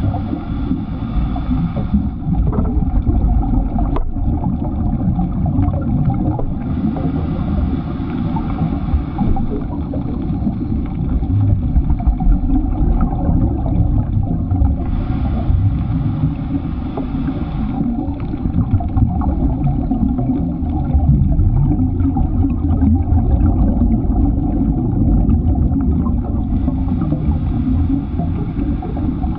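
Underwater noise picked up by a GoPro in its housing: a steady low rumble of water, with a hiss of bubbles lasting two to three seconds that comes back every seven or eight seconds, in the rhythm of a scuba diver's breathing.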